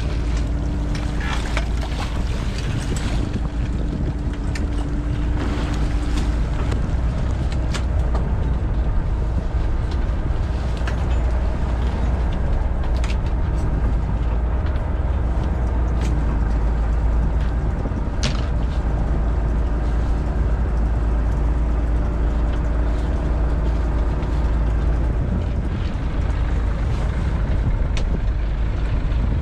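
Fishing boat's engine running with a steady low rumble while a halibut longline is hauled aboard. A steady hum comes in and drops out twice, and scattered sharp clicks and knocks sound over it.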